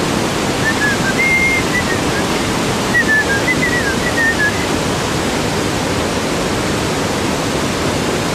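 Steady, loud rush of a large waterfall running high with heavy flow.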